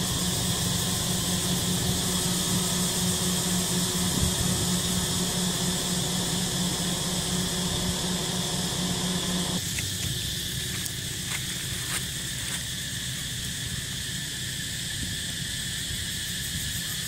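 Steady high-pitched drone of forest insects. A low hum runs under it and cuts off suddenly about ten seconds in.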